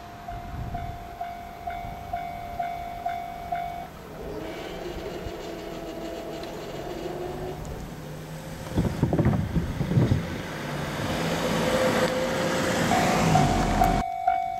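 Japanese railway level-crossing warning bell ringing about twice a second. A train then passes over the crossing: its wheels clack over the rail joints, and a rush of noise rises steadily. Shortly before the end the train sound cuts off sharply and the crossing bell is ringing again.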